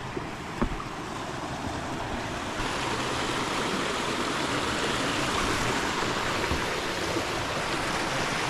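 River water rushing steadily over rocks, growing louder about two and a half seconds in, with a single light knock about half a second in.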